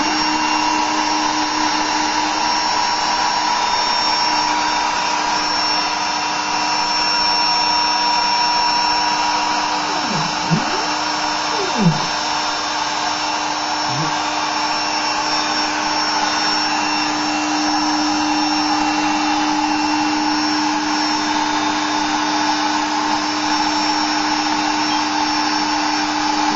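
Spindle motor of a homebuilt desktop CNC router running steadily with a whine. About ten to twelve seconds in come a few brief rising and falling sweeps as the stepper motors move the head.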